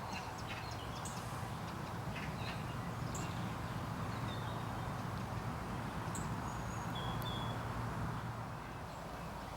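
Steady outdoor background noise with a low, even rumble, broken by a few brief high bird chirps scattered through it.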